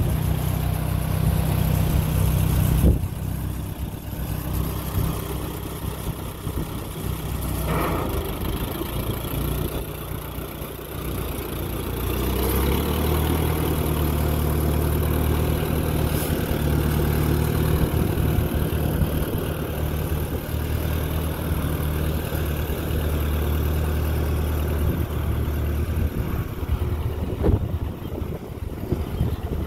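Massey-Harris 20 tractor's four-cylinder engine running steadily as the tractor is driven slowly across grass. Its note shifts about 3 seconds in and again about 12 seconds in. It grows fainter near the end as the tractor moves away.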